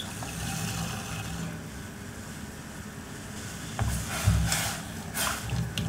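Sugar poured into milk in a metal saucepan, then a spatula stirring the milk and scraping the pot, with a louder stretch of stirring and a few light knocks from about four seconds in.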